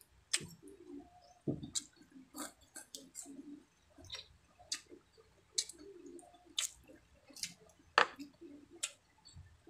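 Close-miked eating by hand: a string of sharp, wet clicks and smacks, the loudest about 8 seconds in, as fried dried milkfish is picked apart with the fingers and chewed, over soft low mouth sounds.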